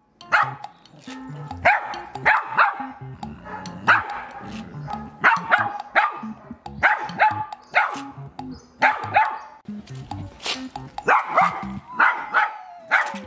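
Small dog barking over and over in short, sharp barks, irregularly spaced and sometimes two or three in quick succession, over background music.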